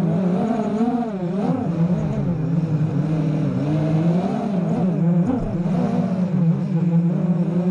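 Racing quadcopter's Cobra 2206 2100 KV brushless motors spinning HQProp 5x4.5 bullnose props, heard from the onboard GoPro: a loud buzzing whine whose pitch keeps rising and falling as the throttle is worked through turns.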